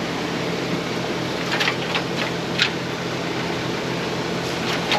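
Poultry litter cruster machinery running steadily at a constant pitch, with a few sharp metallic clicks from the pickup chain and screen as they feed off the machine.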